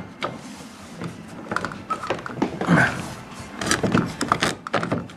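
Scattered plastic knocks and clicks of a refrigerator water filter cartridge being pushed and worked into its push-button-release housing.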